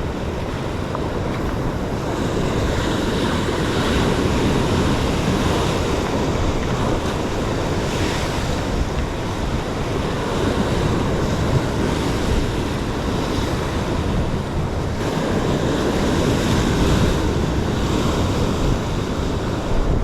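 Ocean surf washing against a rock ledge, with wind buffeting the microphone; the wash swells and eases several times.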